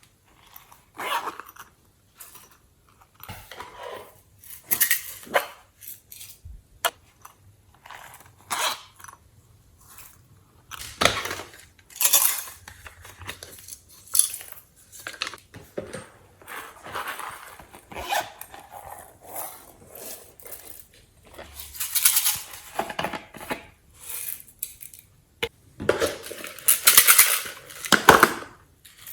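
Glossy slime being worked and mixed with added bits, giving irregular wet squishing bursts with a few sharp clicks and pops.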